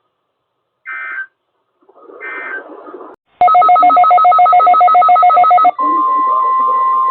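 Two short bursts of weather radio SAME data tones, the digital alert header, about a second apart. Then a loud, rapidly pulsing two-pitch alert tone, which about two seconds later switches to the steady single-pitch 1050 Hz weather radio warning alarm tone.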